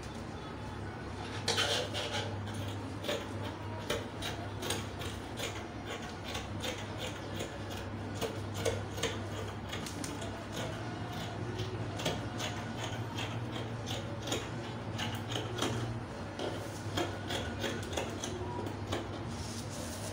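Fabric scissors cutting through cloth around a pinned paper pattern: a long run of short snips, a few each second, with the cloth and paper shifting as they are handled.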